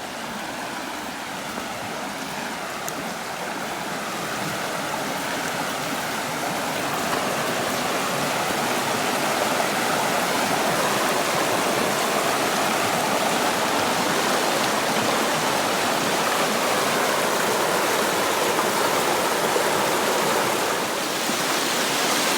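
Spring-fed creek rushing over a solid rock bottom, a steady wash of flowing water. It grows louder over the first ten seconds or so, then holds steady.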